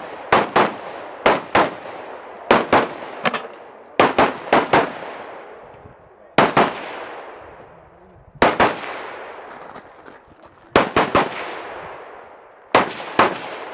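A firearm shot rapidly in pairs and short strings of two to four, with pauses of one to two seconds between strings. Each shot has a short echoing tail.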